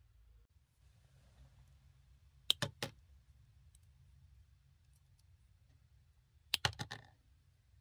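Small sharp metallic clicks from handling a glass cartridge fuse and pliers: three clicks about two and a half seconds in, then a quick run of clicks near the end as the pliers grip the fuse's metal end cap.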